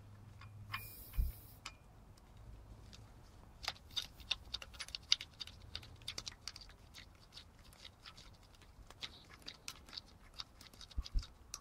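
Light, irregular metallic clicks and scrapes of a propeller nut being turned finger-tight onto an outboard's propeller shaft by a gloved hand, with a brief rustle about a second in.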